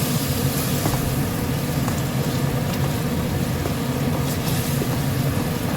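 Steady low rumble with an even hiss from a pot of chicken gravy heating on a lit stove, with no break or change.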